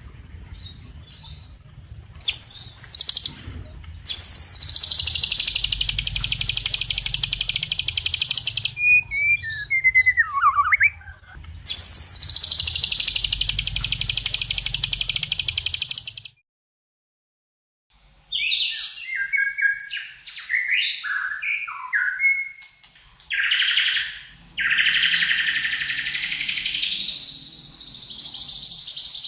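Recorded songbird song: two long, very fast, high trills, each about four seconds, with a few lower whistled notes between them. After a brief silence near the middle come varied quick chirps and another long trill. The calls are typical of the recordings used as 'masteran' to teach caged songbirds.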